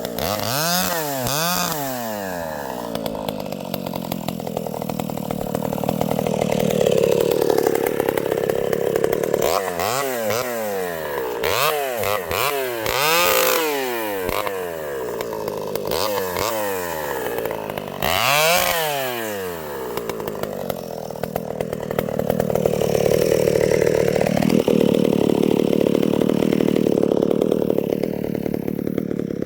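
Vintage Pioneer two-stroke chainsaw running, its revs swooping up and down several times, with longer stretches held at full revs.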